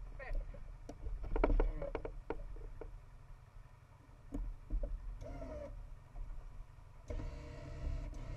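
Off-road vehicle engines running at idle, a steady low rumble, with scattered knocks and clicks in the first couple of seconds and a short whine about seven seconds in.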